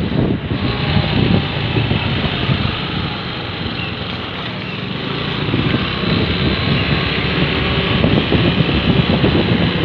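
Wind buffeting the microphone on a moving two-wheeler, with the vehicle's running and road noise underneath, easing a little midway.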